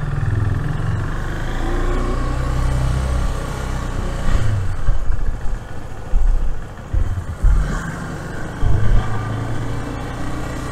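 Motorcycle engine running, with irregular low thumps and rumbles several times.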